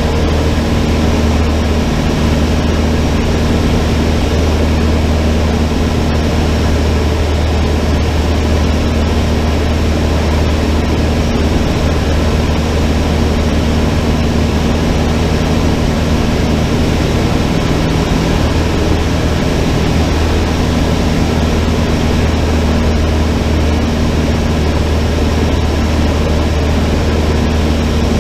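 Cessna 152's four-cylinder Lycoming engine and propeller running steadily, a loud, even drone.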